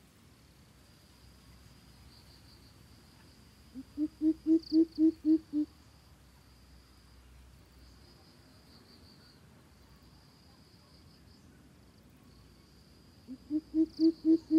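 Greater coucal calling: a quick run of about eight deep hoots, about four a second, the first ones softer. The run comes twice, about four seconds in and again near the end. A faint high insect trill runs behind.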